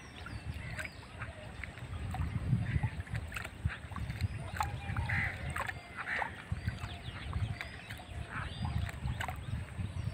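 Outdoor ambience: wind rumbling on the microphone, with scattered short bird chirps and clicks over it.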